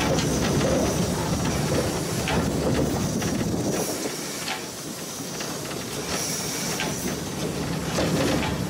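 Steam locomotive 434.2186 heard from its cab as it rolls slowly along the track. A steady low rumble with a thin steam hiss over it, and a few sharp clicks from the wheels on the rails. It grows a little quieter in the middle.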